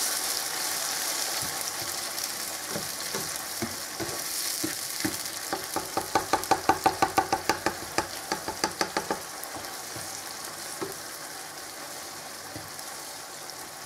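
Grated tomato and garlic sizzling in hot oil in a non-stick frying pan, the sizzle slowly dying down as the tomato goes in. Midway comes a quick run of strokes from the spatula against the pan, about five a second.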